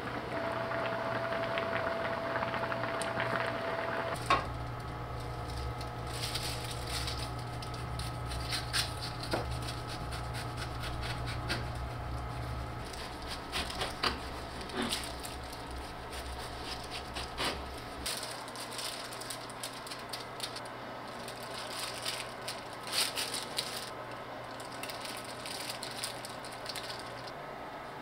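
Kitchen work sounds: scattered light clinks, taps and scrapes of utensils and dishes over a steady low hum that thins out about two-thirds of the way through.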